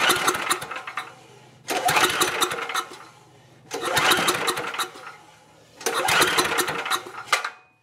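Tecumseh engine of a Homelite 5000-watt generator pull-started four times, each pull cranking it for about a second before it dies away without catching and running. The engine will not start after its carburettor was cleaned.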